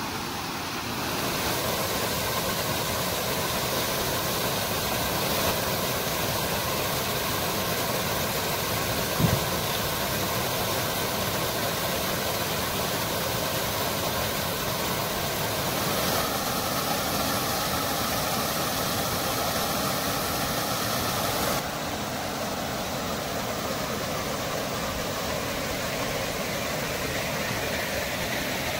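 Small waterfall pouring over rock ledges into a pool: a steady rush of falling and splashing water, its tone shifting a little twice. A single short thump about nine seconds in.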